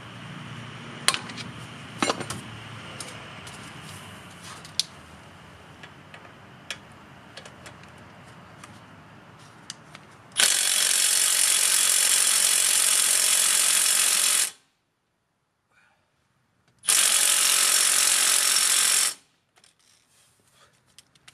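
Cordless impact wrench running in two bursts on a front caliper bracket bolt, one of about four seconds starting about ten seconds in and a shorter one of about two seconds. It is driving through a swivel socket, which eats up some of its power. Before the bursts, light clicks and clatter of tools being handled.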